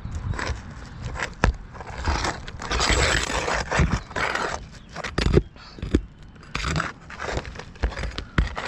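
Roof snake scraping and prying under asphalt roof shingles in irregular strokes, breaking the shingles' seal, with a few sharp knocks.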